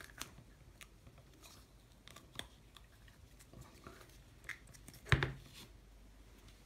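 Hands handling plastic Play-Doh tubs and lids: faint scattered clicks and scrapes, with one louder knock about five seconds in.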